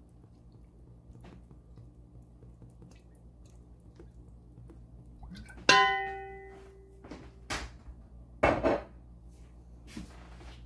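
Metal kitchenware clangs once with a ringing tone about halfway through, then clatters a couple more times, over a low steady hum.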